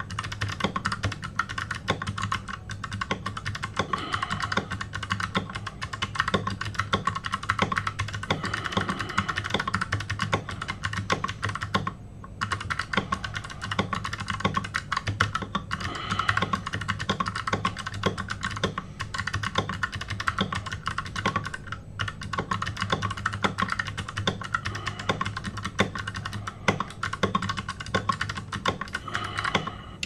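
Fast typing on a computer keyboard: a rapid, continuous stream of keystrokes, broken by two short pauses about 12 and 22 seconds in.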